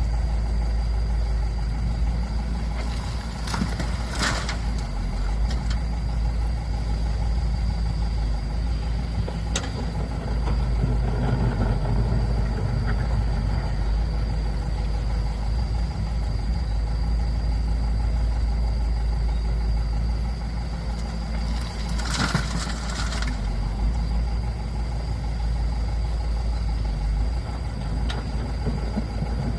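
Diesel engines of excavators and dump trucks running steadily with a deep, continuous rumble. Two brief, louder noisy bursts come a few seconds in and again about two-thirds of the way through.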